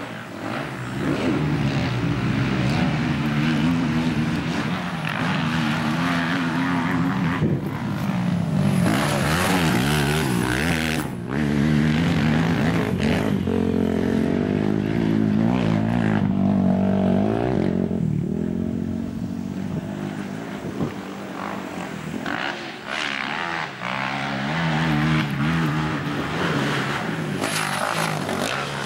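Racing quad (ATV) engines revving hard on a dirt motocross track. The pitch keeps climbing and dropping as the riders accelerate, shift and back off over the jumps.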